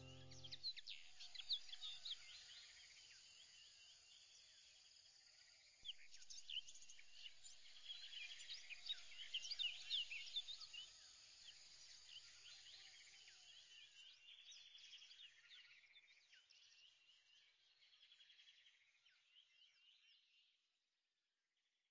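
Faint chorus of small birds chirping: many short, quick high chirps, busiest in the middle, thinning out and fading away near the end.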